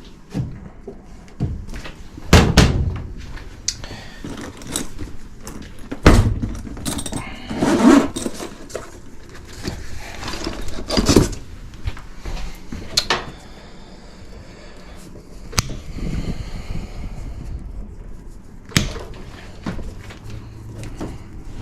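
Scattered clunks, knocks and rattles of hand tools and metal parts being handled while an old air handler is taken apart, with two loud thumps about two and six seconds in.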